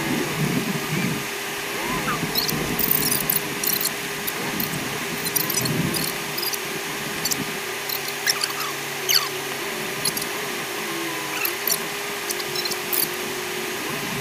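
Fast-forwarded cabin audio from an off-road vehicle driving on desert tracks: squeaky, garbled chatter and rapid clicks and rattles over a steady hum.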